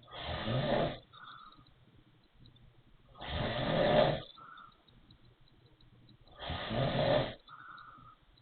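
Wheezy snoring: three loud, rasping snores about three seconds apart, each followed by a short, fainter wheezy sound.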